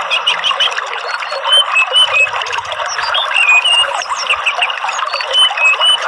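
Songbirds chirping in short whistled notes over a steady rush of running water.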